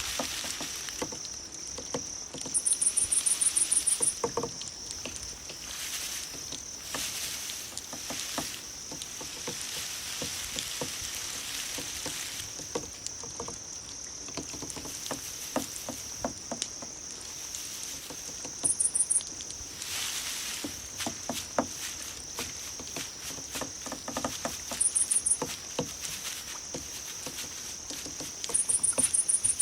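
Recorded chorus of grass insects: a steady high-pitched trill runs throughout. A louder, higher rapid pulsed chirp breaks in four times, the longest about two seconds in and again near the end. Scattered light clicks and patter sound underneath.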